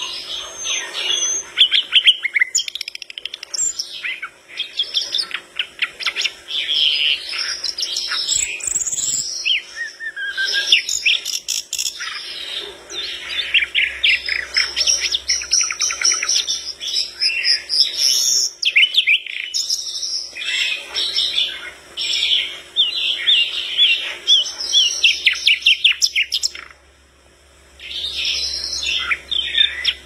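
Caged sikatan londo (common nightingale) singing a long, varied song of fast trills, rattles and whistles, with one brief pause near the end.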